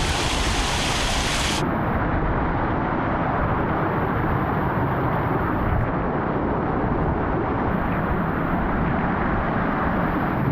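Rushing stream water for about a second and a half, then an abrupt cut to the steady low rumble of a moving vehicle's road and engine noise.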